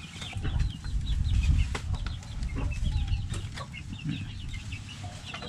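Chickens clucking, many short calls a second, over a steady low rumble.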